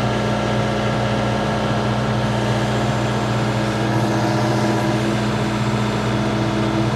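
John Deere 4066R's diesel engine running steadily under the loader, heard from inside the tractor cab, with a higher steady tone joining about two seconds in.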